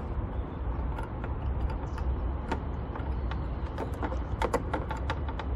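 Light metal clicks and clinks of a combination spanner and a ratchet adapter being fitted together and handled, a few scattered, then a quick run of clicks near the end, over a steady low rumble.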